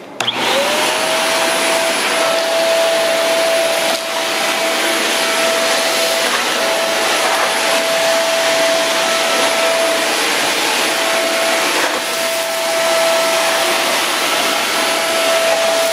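A cyclonic stick vacuum is switched on. Its motor whine rises quickly to speed within the first second, then holds a steady high whine over the rush of suction air while it vacuums a hard floor, with a couple of brief dips in the tone.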